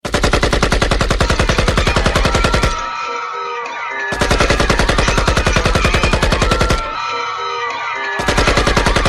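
Rapid automatic gunfire starting abruptly in long bursts, with a couple of seconds' lull between bursts where high wavering voices like screaming carry on. The same stretch repeats like a looped sound effect, a third burst starting near the end.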